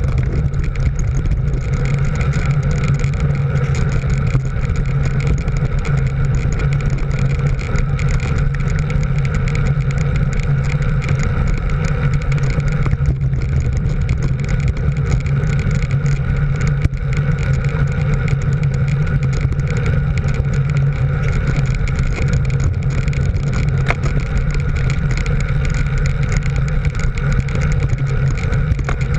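A motor vehicle's engine running at a steady cruising speed, a constant drone with wind and road noise.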